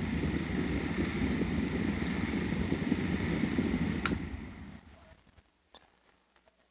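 Mainstays 9-inch electric fan running with a steady whir and slight buzz, which the owner puts down to its motor needing more oil. A little after four seconds a click comes, and the blades wind down and fade out over about a second, leaving a few faint ticks.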